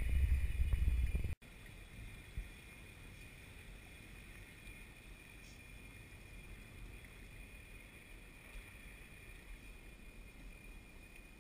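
Loud low rumble of wind and handling on a kayak-mounted action-camera microphone for about a second and a half, cut off suddenly. After that, a faint steady hiss of wind and water around a kayak on open sea, with a few small ticks.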